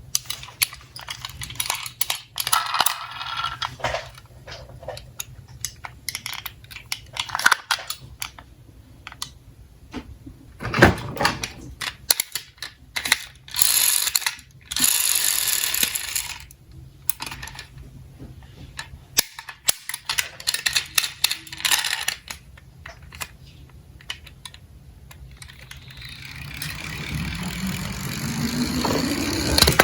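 Diecast toy cars clattering and rolling down a toy slope track: many sharp clicks, knocks and rattles as they are set down and knock into one another, then a swelling rolling sound that rises in pitch near the end.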